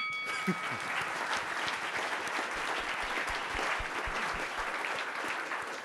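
Audience applauding steadily, with the ring of a chime fading out in the first second.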